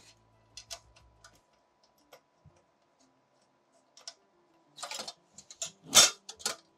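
Metal clicks and clatter of ultrasonic flow-meter precision mounting frames and spacer bar being handled on a workbench: a few light scattered clicks, then a burst of rattling about five seconds in with one loud knock about six seconds in.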